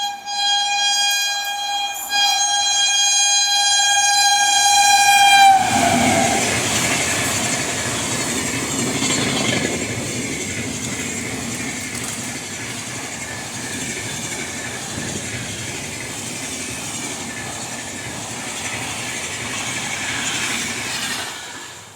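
Indian Railways electric locomotive's shrill horn sounding two blasts, a short one and then a longer one of about three and a half seconds that dips slightly in pitch at its end. The train then runs past close by with a loud, steady rushing noise.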